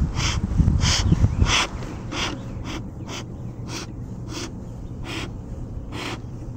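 Bee smoker's bellows pumped over and over, each squeeze pushing a short hissing puff of air and smoke out of the nozzle: about ten puffs, slowing a little toward the end, fanning the cedar-shaving fire to get it burning hot. Wind buffets the microphone for the first second and a half.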